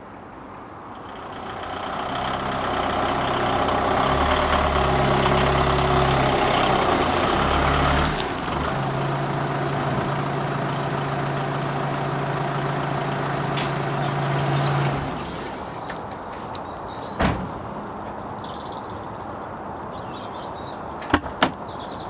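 Van engine running, growing louder over the first few seconds and then holding a steady hum that stops about two-thirds of the way through. A few sharp clicks from the van's door follow near the end.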